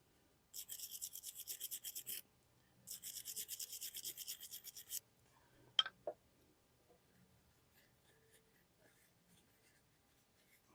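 Hand wire brush scrubbing a brake caliper slide pin clean of old grease and grime, in two quick runs of rapid back-and-forth strokes. Two light clicks follow.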